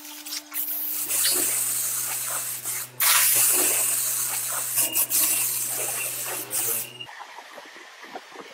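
Paint sprayer hissing as grey paint is sprayed onto steel scooter wheel rims, in long bursts with a brief break about three seconds in and a low steady hum underneath. The spraying stops about a second and a half before the end.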